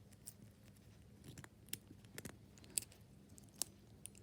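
Faint scattered clicks and ticks of padlocks and keys being handled, small metal parts knocking, a few sharper clicks among them.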